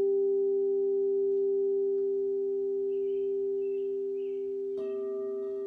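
Crystal singing bowls ringing with a steady, sustained tone that slowly fades. Near the end another bowl is struck, adding a higher tone over the first.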